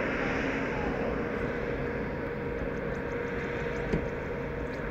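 Airbus A380's four jet engines at taxi power: a steady rumble and hiss with a faint steady hum. A single short knock sounds about four seconds in.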